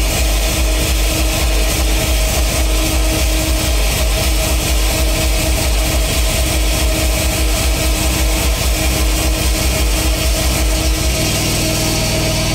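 Loud, distorted electronic music played live on a Eurorack modular synthesizer and an Elektron drum machine: a dense noisy wall over a fast-pulsing sub-bass and a steady drone. About eleven seconds in the bass changes to a different, higher pattern.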